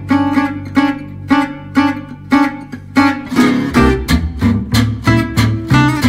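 Background music led by a plucked guitar, with evenly spaced notes about two a second. A bass line comes in about halfway through and the music grows fuller.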